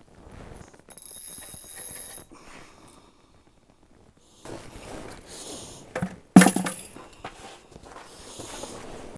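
Ice-fishing rod and reel being handled: a brief thin reel whine early on, then boots scuffing and crunching on packed snow with a sharp knock about six and a half seconds in.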